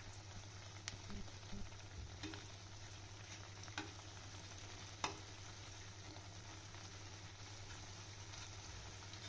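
Besan batter pakoras deep-frying in ghee in a kadhai: a faint, steady sizzle. A few light clicks of a perforated slotted spoon against the pan break in as the pakoras are turned, the sharpest about five seconds in.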